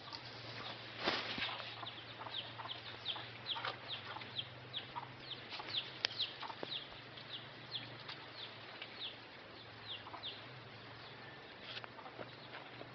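A run of short, high chirps, each sliding down in pitch, about two or three a second, with a few scattered taps and a faint steady hum beneath.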